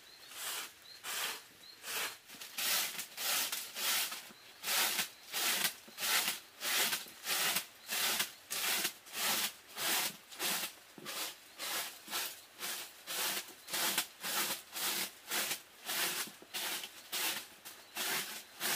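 A broom sweeping a bare earth floor in quick, regular strokes, about two swishes a second.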